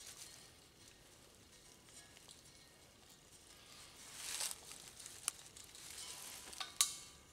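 Faint rustling and hissy handling noise, swelling briefly about four seconds in, with two sharp clicks in the second half.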